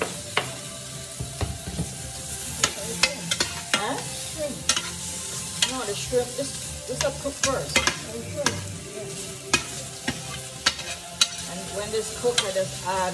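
Potatoes frying and sizzling in a stainless steel pan while a metal utensil stirs them, with repeated sharp clinks of metal on the pan over the steady sizzle.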